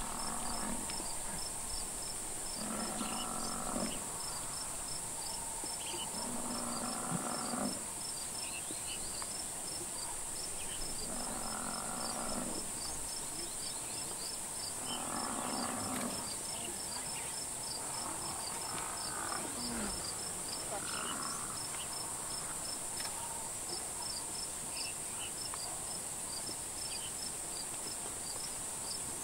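African buffalo bellowing in distress as lions pull it down: about seven moaning calls, each about a second long, every few seconds, stopping about two-thirds of the way through. Under them runs a steady high drone of crickets with a regular chirping.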